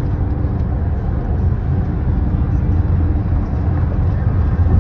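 Steady road noise inside a car's cabin at freeway speed: an even, low rumble from the tyres and engine.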